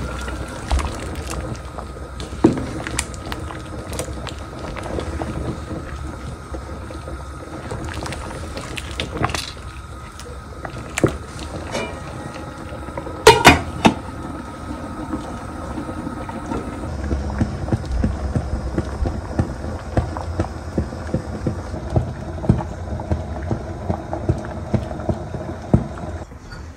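Cooking sounds: a steady bubbling hiss like a pot of soup simmering, with scattered knocks and clinks of utensils, a loud cluster of them about halfway through. From about two-thirds in, short knocks come about two a second.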